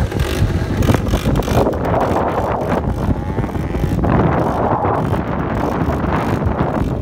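Quad bike (ATV) engines running and revving, with wind buffeting the microphone.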